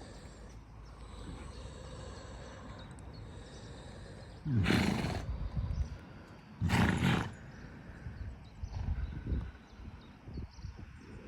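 Grey Irish draught mare giving two loud, harsh blasts of breath a little under halfway in, about two seconds apart, the coughing and snorting of a horse after a roll. A few quieter low bursts follow.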